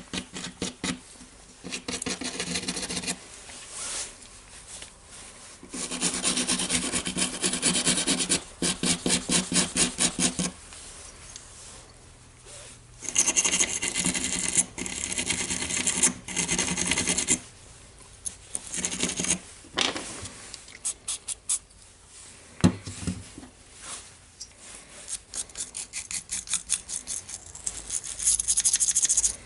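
A sanding block rubbed quickly back and forth over a small red plastic part, in bursts of several scraping strokes a second with short pauses between them. There is a single sharp knock about three quarters of the way through.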